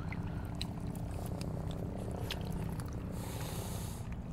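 Steady low motor hum, with a short burst of hiss about three seconds in.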